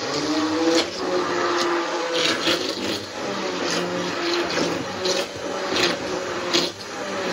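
Hand-held electric stick blender with a whisk attachment running steadily, whisking eggs and brandy in a stainless steel bowl, with scattered clicks from the whisk against the bowl. It switches on at the start and cuts off near the end.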